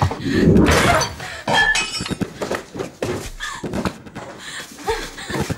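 A heavy thunk and something breaking, with a cluster of glassy clinks and brief ringing, followed by scattered smaller knocks and scrapes.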